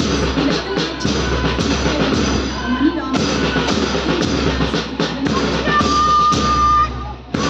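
Music with a drum beat.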